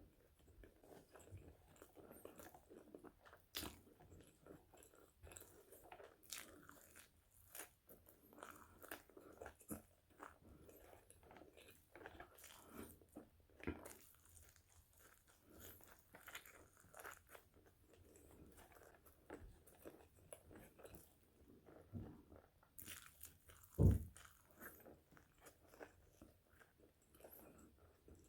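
Close-miked crunching and chewing of Potato Corner fries, with irregular crisp bites and soft mouth sounds. Late on, one dull thump stands out as the loudest sound.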